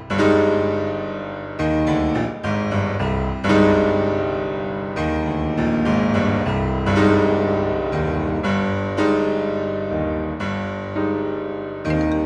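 Background music of a piano playing chords, a new chord struck about once a second, each ringing out and fading before the next.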